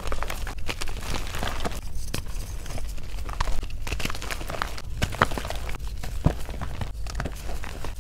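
Soft pressed-powder shapes crumbling between squeezing hands into loose powder: irregular soft crunches and crackles, with a couple of sharper crunches about five and six seconds in.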